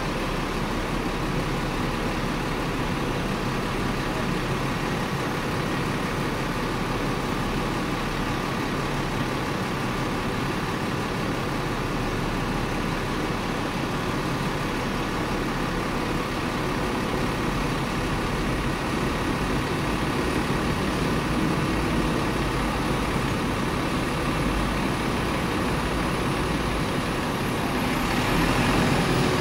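Steady street-traffic noise and vehicle hum heard from the upper deck of a stopped Hong Kong double-decker tram, growing a little louder near the end.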